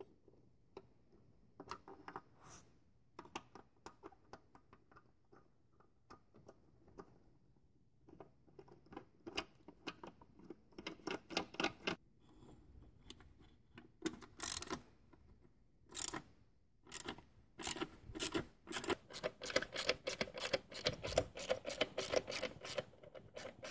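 Hand ratchet clicking as a socket on an extension turns bolts out: scattered clicks at first, then runs of quick clicks that grow denser and louder over the last several seconds.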